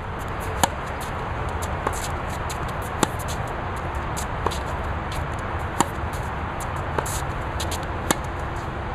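Tennis rally: sharp pops of the racket strings striking the ball about every second and a quarter. The louder hits come every two and a half seconds from the near player's groundstrokes, with fainter hits in between from the player across the net. All of it sits over a steady background hiss.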